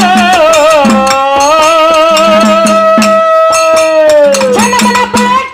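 Kannada dollina pada folk singing: a woman holds one long sung note with vibrato that falls away about four and a half seconds in. Behind it, hand cymbals and a drum keep a steady beat, with harmonium.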